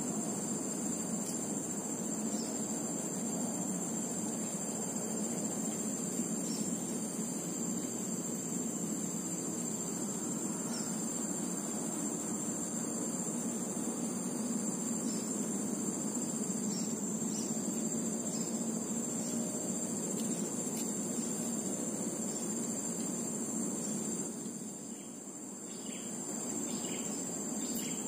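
Steady insect chorus, a continuous high shrill, over a low steady background noise that dips briefly near the end.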